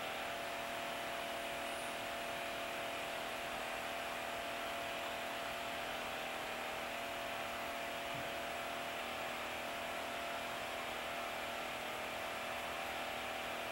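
Steady hum and hiss with a faint constant tone and no distinct events.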